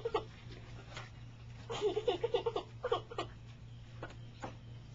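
A small dog and a raccoon play-fighting, making short vocal noises: a quick run of them about two seconds in, then a few single ones.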